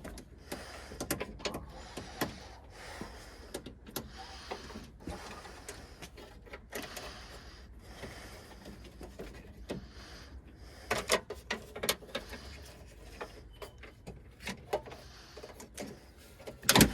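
Scattered clicks, taps and light knocks of parts and tools being handled inside a truck door during latch replacement, with a denser run of clicks about eleven seconds in and a sharp knock near the end.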